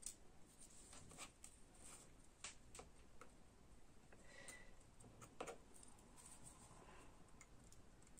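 Faint, scattered ticks and light scrapes of a pen-style craft knife blade cutting small leaf shapes out of watercolour paper against a cutting mat.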